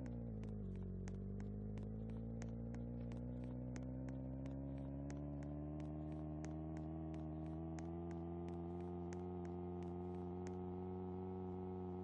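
A steady electronic drone, like a synthesizer pad, that dips in pitch about half a second in and then slowly rises, with a regular ticking about three to four times a second.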